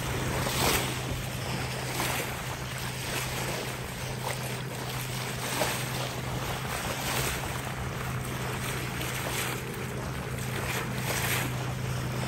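Water rushing and splashing along the bow of a sailboat under way at about six knots, with a splash every second or two, wind on the microphone, and a steady low hum underneath.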